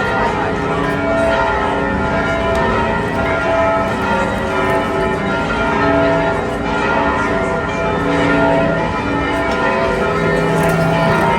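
Church bells ringing: several bells of different pitch struck over and over, each note ringing on.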